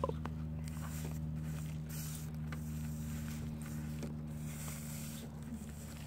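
A steady low mechanical hum, as of a motor or machine running, with a few faint soft ticks.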